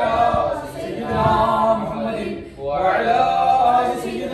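Male voices chanting Arabic prayer in long, melodic, drawn-out phrases, with a short break for breath about two and a half seconds in.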